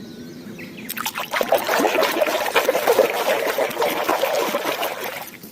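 Water running and splattering over a mud-covered plastic animal toy as it is rinsed clean. It starts about a second in and dies away near the end.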